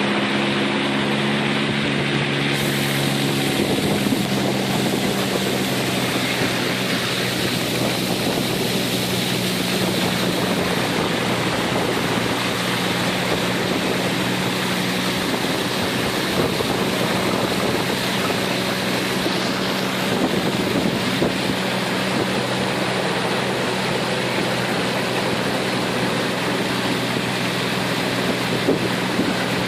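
Small boat's motor running steadily while under way, with wind rushing over the microphone.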